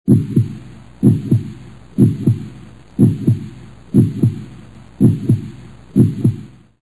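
Heartbeat sound effect: a low double thump, lub-dub, repeating about once a second, seven beats in all.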